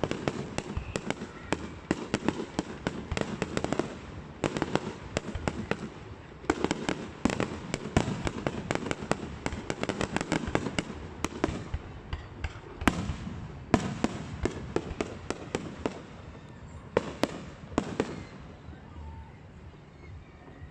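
Aerial fireworks display: a dense run of rapid pops and crackling bursts. After about twelve seconds it thins to a few separate loud bangs and then dies away near the end.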